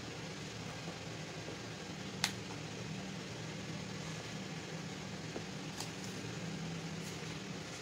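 Steady low fan-like hum, with one sharp click about two seconds in and two fainter clicks later.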